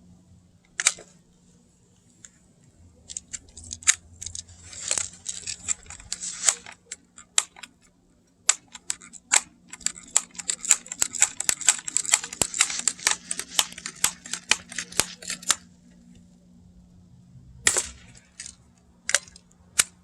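Sharp clicks and snaps from a BB gun being fired and worked: single clicks a second or two apart, then a rapid run of clicks for about five seconds in the middle, then a few more single clicks near the end.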